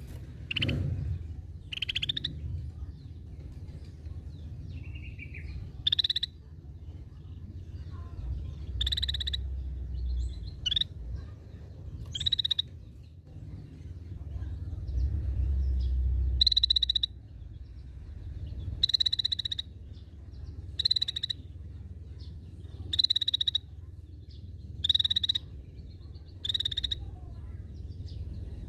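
A scaly-breasted bulbul (cucak bersisik) giving short, buzzy calls, one about every two seconds.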